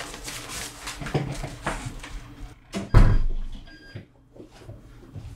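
An apartment front door with a digital keypad lock being opened. Light knocks come first, then a heavy thump about three seconds in, followed by a few short high beeps.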